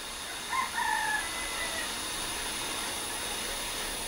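A rooster crowing once, faintly, about half a second in. Beneath it, a steady hiss from the gas torch flame heating the carburetor body.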